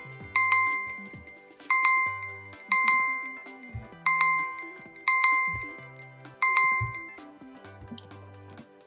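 Smartphone ringtone melody: a bell-like chime struck six times at the same pitch, each ringing out, over a low bass line. The chimes stop about seven seconds in and the bass carries on alone.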